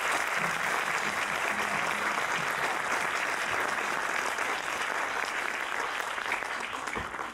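Concert hall audience applauding steadily. The applause dies away right at the end.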